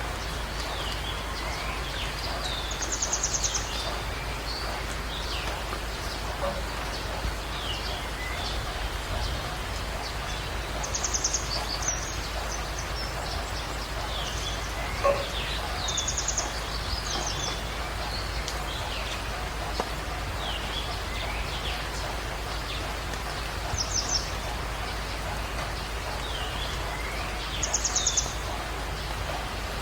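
Songbirds singing: a short, fast, high trill repeats every several seconds, with scattered brief chirps and swooping notes between, over a steady background hiss.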